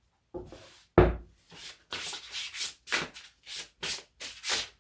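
A deck of oracle cards being shuffled by hand: a knock about a second in, then a steady run of soft swishing strokes, about three a second.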